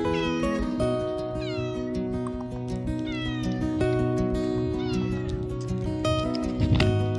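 Domestic cat meowing about four times, each meow falling in pitch, over background music.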